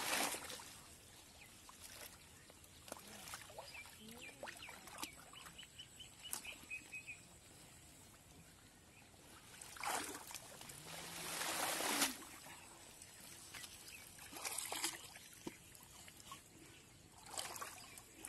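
Shallow muddy water sloshing and splashing in bursts as hands grope through mud and water hyacinth for fish, the longest burst about ten seconds in, with small knocks and clicks between. A bird chirps a quick run of short notes partway through.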